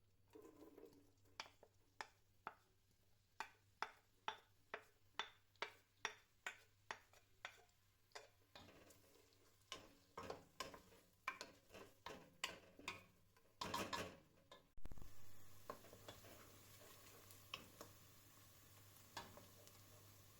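Kitchen utensils knocking during cooking: sharp strikes about two a second, then a busier clatter with one louder burst. After that a steady faint hiss continues, with occasional clicks.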